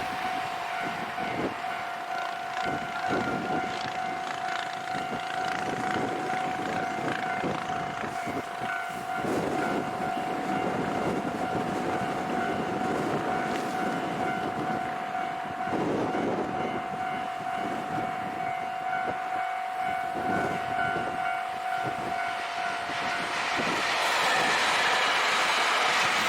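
Level-crossing warning bell ringing at a steady pitch while a JR Hokkaido train runs through the crossing, its wheels clattering over rail joints. Near the end the bell stops and a louder, even rush of train noise takes over.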